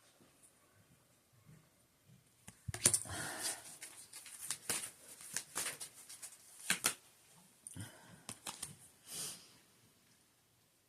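A deck of oracle cards being shuffled and handled: a run of irregular snapping and rustling, starting about two and a half seconds in and easing off near the end.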